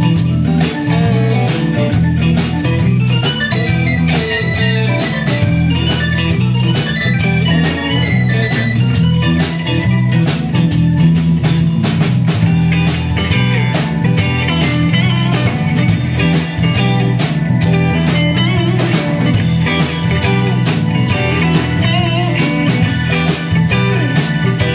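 Live blues-rock band playing an instrumental passage: electric guitars, electric bass and drum kit with an organ-toned keyboard, over a steady drum beat.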